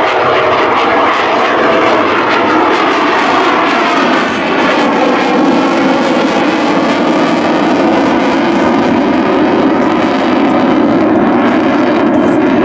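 Twin General Electric F404 jet engines of a CF-18 Hornet in full afterburner, a loud steady roar as the fighter flies overhead, with a tone in it sliding down over the first few seconds.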